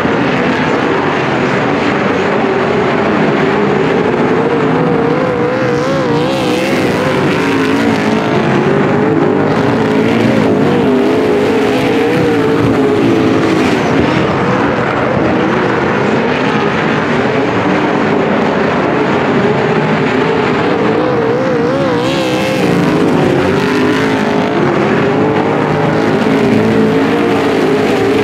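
A pack of super saloon race cars' V8 engines racing on a dirt oval: a steady loud din from several engines at once, their pitch rising and falling as the drivers lift and get back on the throttle through the turns.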